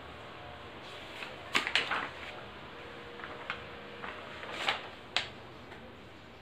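A handful of sharp clicks and knocks over a steady background hiss: a quick cluster of three about one and a half seconds in, then single ones near the middle and toward the end.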